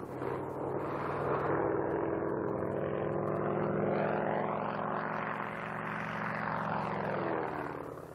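Propeller airplane flying past: its engine drone swells to a peak about halfway through, then fades with the pitch dropping near the end.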